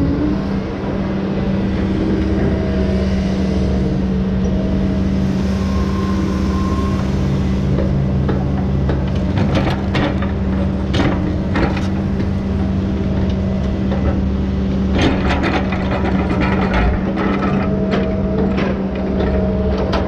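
Tigercat T234B knuckleboom log loader's diesel engine running steadily, heard from the operator's cab. From about nine seconds in come repeated sharp knocks and clatter as the grapple sets logs onto a trailer.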